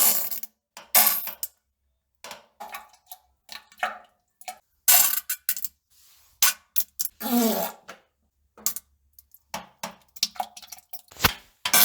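A run of short, irregular farts and plops, with dead silence between them. One longer, pitched fart comes about seven seconds in, and a sharp click follows near the end.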